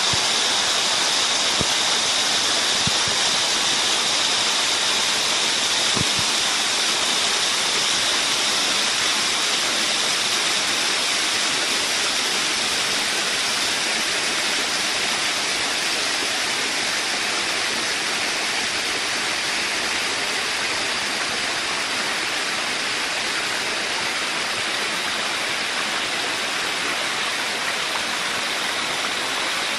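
Mountain stream water flowing and cascading over rocks: a steady, even rush of water.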